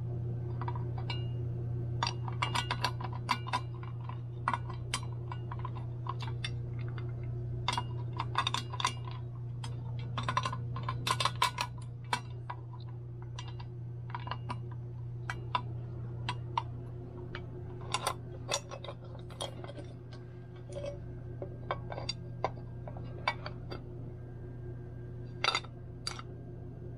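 Small metal parts of a KitchenAid stand mixer's gear assembly clicking and clinking as they are handled and fitted, in irregular clusters of sharp taps over a steady low hum.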